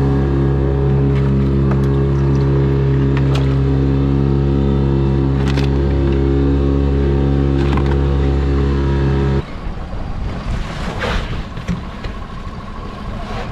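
Boat engine droning at steady revs, with a few light knocks over it; the drone cuts off abruptly about nine seconds in. After that, rushing wind and water as the boat runs.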